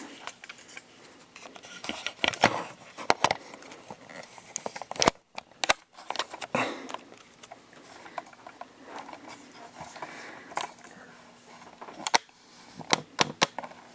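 Handling noise of a camera being fitted onto a tripod: scattered clicks, knocks and rubbing close to the microphone. The sound cuts out briefly about five seconds in.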